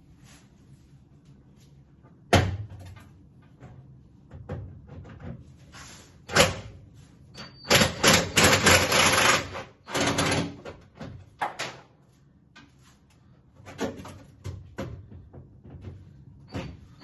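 Tools and metal parts knocking and clattering against a 1967 Mustang's steel door while the door latch is being unscrewed and taken out. There are sharp knocks about two seconds in and about six seconds in, and a busier stretch of clatter from about eight to ten seconds.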